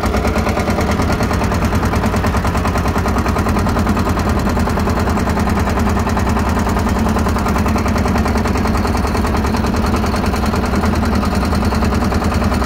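Motorboat engine running steadily with a rapid, even chugging.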